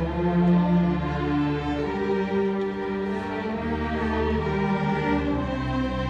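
Middle school string orchestra playing: violins, violas, cellos and double basses bowing held notes over a low bass line, the chords changing every second or so.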